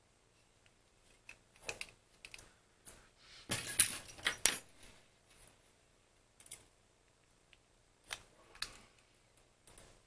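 Irregular clicks, rattles and scrapes of small hard parts being handled, densest and loudest about three and a half to four and a half seconds in, with another cluster around eight seconds.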